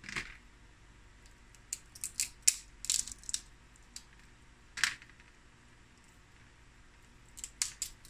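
Boiled crab body being broken into small pieces by hand: a scattered series of short, quiet cracks and snaps of shell and cartilage, with a lull of about two seconds before a last cluster near the end.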